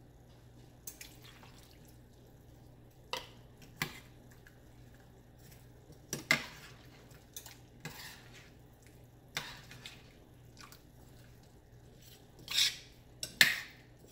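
Metal spoon stirring a chunky stew in a stainless steel pot, with scattered clinks and screeching scrapes of metal against the pot. The loudest scrapes come near the end.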